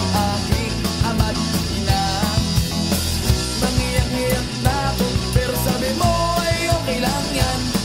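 Rock band recording in an instrumental passage: melodic lead lines over bass and a steady drum beat.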